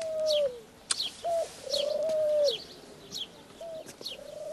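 Dove cooing in a repeating phrase, a short note then a long one that falls away at its end, with small birds chirping high and quick over it. A single short click comes about a second in.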